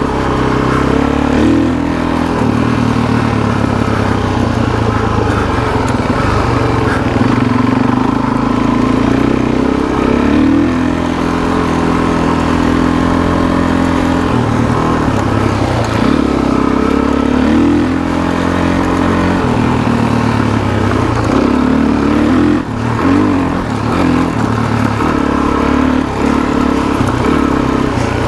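Suzuki DR-Z400SM's single-cylinder four-stroke engine running under way, its pitch rising and falling several times as the throttle opens and closes, with one brief drop in loudness a little over three quarters of the way through.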